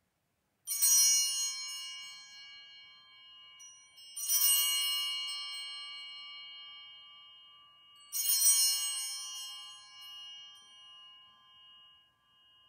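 Altar bells (Sanctus bells) rung three times, about every four seconds, at the elevation of the consecrated Host. Each ring is a bright cluster of several high tones that rings on and fades slowly.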